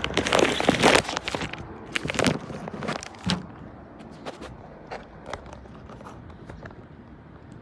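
Plastic clicks and scraping from handling a car wiper blade and its arm at close range, loudest and densest in the first second and a half, with a few sharper clicks around two and three seconds in, then only scattered faint ticks.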